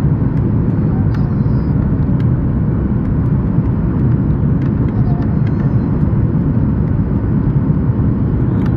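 Steady low rumble of a Boeing 737-8 MAX's engines and airflow, heard inside the passenger cabin.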